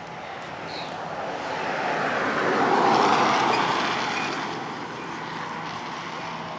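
A road vehicle driving past: its noise grows to a peak about three seconds in, then fades away.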